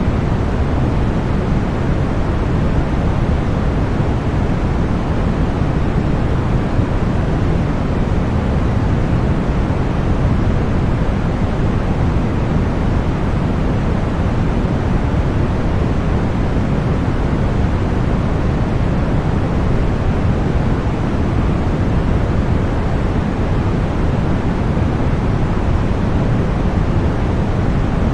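Continuous, unchanging synthetic noise for sleep and tinnitus masking, sold as white noise but deeper, with most of its energy in the low end.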